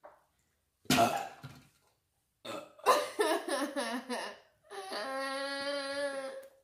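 A child burping after drinking soda: a loud rough burp about a second in, a run of shorter croaky burps, then one long, steady, drawn-out burp lasting about two seconds near the end.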